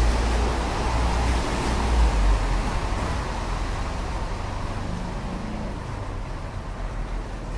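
A steady rushing noise with a deep rumble beneath it, slowly getting quieter: the background noise bed of a subliminal-affirmation track.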